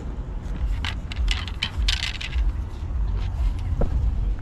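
A quick run of light metallic clinks and rattles, bunched about one to two and a half seconds in, over a steady low rumble.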